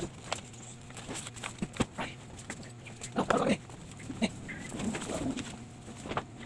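Birds calling, among scattered short clicks and knocks.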